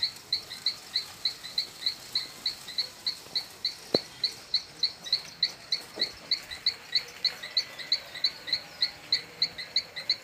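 A small animal's chirping call, one short chirp repeated evenly about three and a half times a second. A sharp knock sounds about four seconds in, and a fainter one near six seconds.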